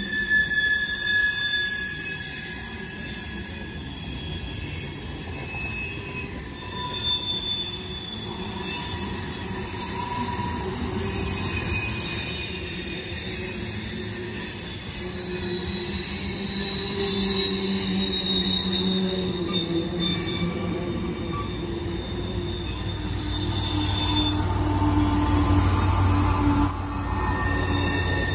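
Freight cars of a long CSX freight train rolling past, their wheels squealing in several shifting high-pitched tones over a steady rumble of the train on the rails. The low rumble grows louder near the end.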